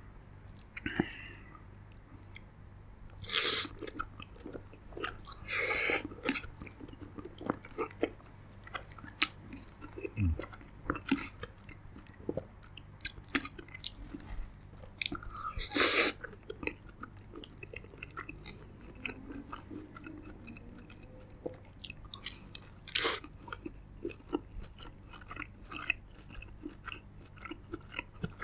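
Close-miked chewing of spaghetti: irregular wet mouth smacks and clicks, with four louder short bursts spread through.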